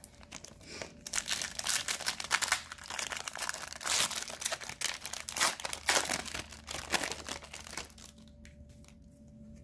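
Wrapper of an Upper Deck Series 2 hockey card pack being torn open and crinkled, a dense crackling that stops about eight seconds in.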